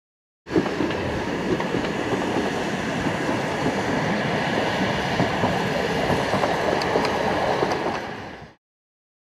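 Steady, dense mechanical noise full of small rattling clicks, like a train running on rails. It starts suddenly about half a second in and fades out shortly before the end.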